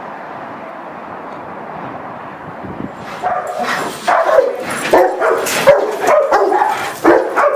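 A dog in a kennel barking and yipping excitedly, in quick repeated calls starting about three seconds in. Before that there is only a steady rushing noise.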